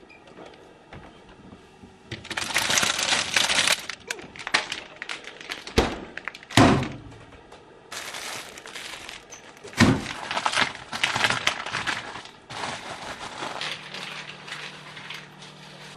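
Stiff plastic packaging crinkling and crackling as it is handled, in several long stretches, with a few sharp knocks and thuds between them.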